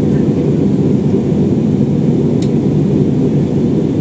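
Airliner cabin noise during descent: a steady low rumble of engines and rushing air, with one faint click about two and a half seconds in.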